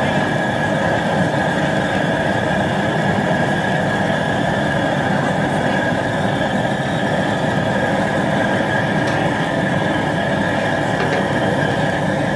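High-pressure propane burner under a 60-quart boiling pot, running with a steady, unbroken rushing noise that holds the same level throughout.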